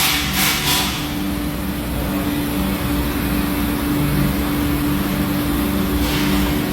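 A steady machine hum with a constant low tone and an even hiss.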